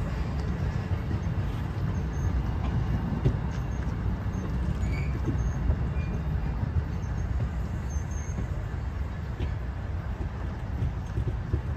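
Diesel train rumbling steadily past, a low rumble with a few light clicks over it.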